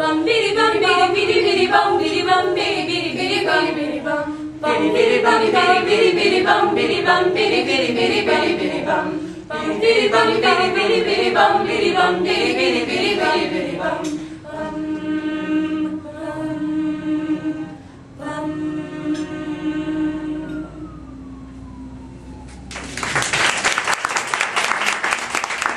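Mixed a cappella choir of teenage voices singing in close harmony without accompaniment, the song closing on long held chords. Audience applause breaks out near the end.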